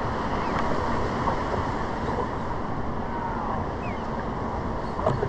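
Steady wash of ocean water and wind, with wind buffeting the microphone. A short knock near the end.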